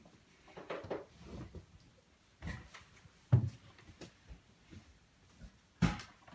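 Scattered knocks and rustling as someone moves about beside a bed and handles things. The loudest is a sharp thump about three seconds in, with another near the end.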